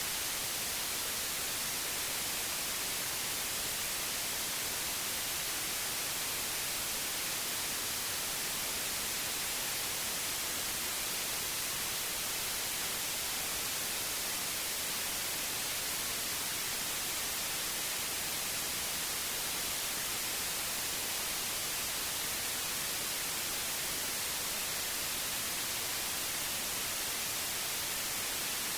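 Steady white noise: an even, unbroken hiss with no change in level, strongest in the high frequencies.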